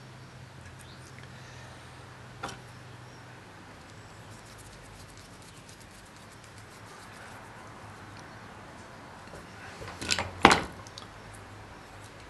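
Small handling clicks as a screwdriver tightens the terminal screw of a lamp-holder wire connector, with one sharp click about two and a half seconds in and a louder cluster of sharp knocks near the end.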